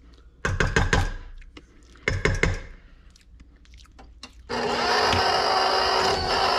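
A wooden spoon scraping and knocking against the steel bowl of a KitchenAid stand mixer in two short bouts, then about four and a half seconds in the mixer's motor starts and runs steadily, beating cake batter.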